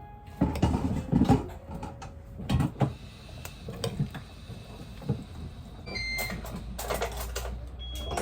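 Kitchen handling noise: irregular knocks and clatters of dishes and utensils. About six seconds in come a few short electronic beeps from a kitchen appliance over a low hum, and one more beep near the end.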